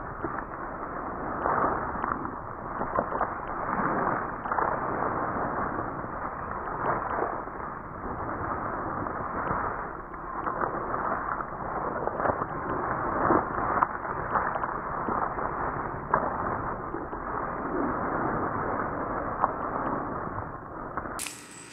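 Slowed-down outdoor recording of a small dog running through grass: a low, muffled rustling with scattered clicks and thumps, all dragged down in pitch by the slow motion.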